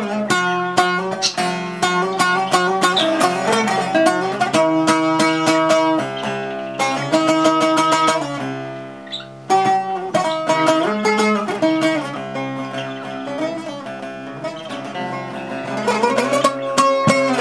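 Instrumental interlude of a Turkish folk song: a plucked string instrument plays a quick melody over a steady low accompaniment. It thins out briefly about eight seconds in, then comes back in sharply.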